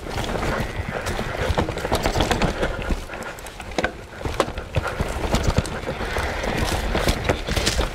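Mountain bike riding fast down a dirt singletrack: knobbly tyres, including a Schwalbe Magic Mary front, rolling over dirt and roots, with rapid irregular clicks and knocks from the bike rattling over bumps and a steady low rumble.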